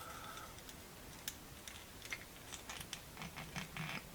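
Faint, scattered light clicks and taps of small metal ratchet parts being handled and seated in the ratchet head during reassembly, a little more frequent near the end.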